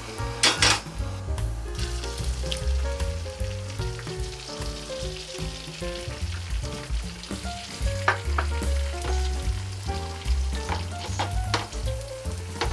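Beaten egg frying in an oiled pan, sizzling steadily, with a few sharp clicks.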